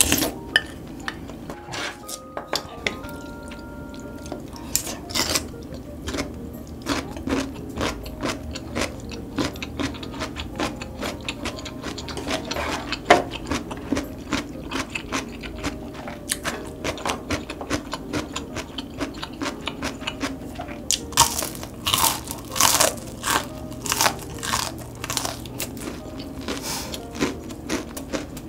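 Close-miked eating sounds: soup taken from a ladle, then crunching and chewing of battered fried loach, with many small mouth clicks and louder crisp crunches a little past two-thirds of the way through.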